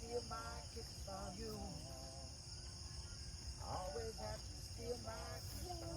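A steady, high-pitched chorus of crickets, with voices talking faintly in snatches over it.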